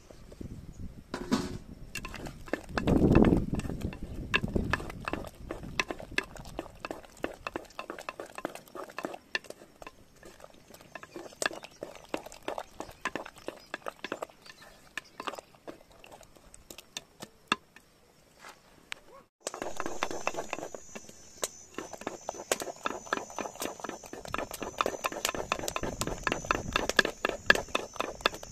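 Cooking utensils knocking and clinking on pots and dishes in a quick, irregular run of light knocks. About two-thirds of the way through, the background changes and a steady high-pitched tone joins in.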